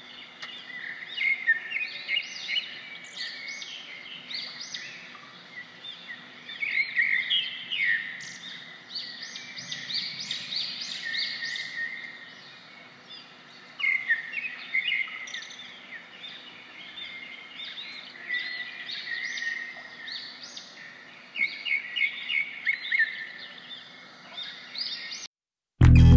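Small birds chirping, many short high calls overlapping over a faint steady background. It cuts off near the end and guitar music starts.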